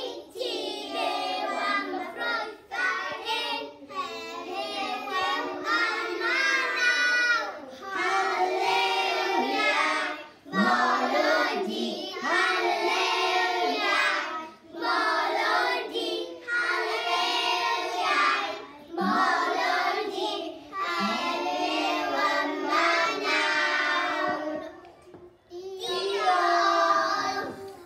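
A group of young children singing a song together, unaccompanied, in phrases separated by short breaks for breath.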